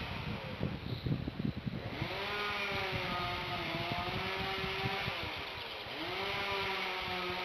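Two-stroke chainsaw working near the nest: ragged and crackling for the first two seconds, then running on at a steady high pitch that sags briefly and picks up again near the end.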